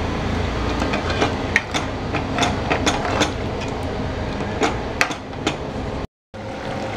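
Metal ladle stirring a thin curry in a steel pot, clinking and scraping against the pot several times over a steady hum. The sound cuts out for a moment near the end.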